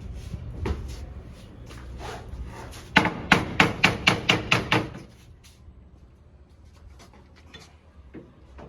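Repeated striking to knock a part of a new machine into place during installation. A few scattered knocks are followed by a quick run of about eight hard blows, about four a second, then a few faint taps.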